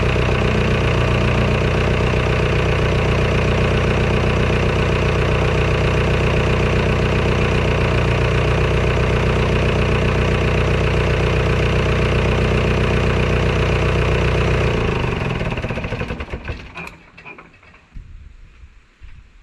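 Tractor engine idling steadily, then winding down and stopping about fifteen seconds in; a few light knocks follow.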